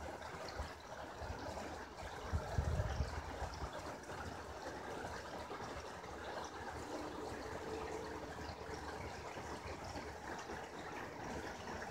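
The French Broad River running over shallow rocky riffles: a steady rush of water. A brief low rumble on the microphone about two seconds in.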